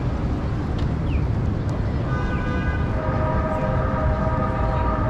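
A passing train: a steady whine of several tones comes in about two seconds in and holds, over a low rumble of traffic.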